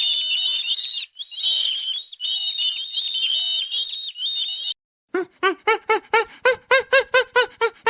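Many small birds chirping and peeping at once, dense and overlapping. It cuts off abruptly after about four and a half seconds. After a short gap, an animal gives a fast, even run of short calls, about six a second.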